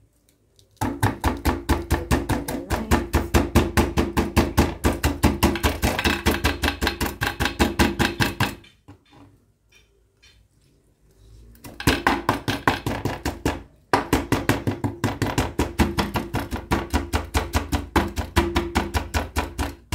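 Kitchen knife chopping scallion on a glass cutting board in quick, even strokes, each knock ringing off the board. There is a pause of about three seconds near the middle before the chopping starts again.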